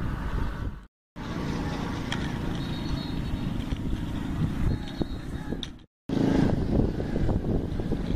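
Steady low outdoor rumble, cutting out to silence twice for a split second about one second in and about six seconds in.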